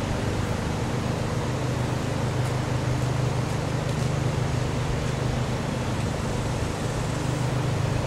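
A machine running with a steady low hum over an even background rush, unchanging throughout.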